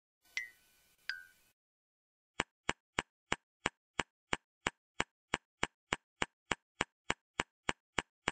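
Cartoon sound effects: two short ringing notes over a faint hiss, the second lower, then a steady clock-like ticking of about three sharp ticks a second.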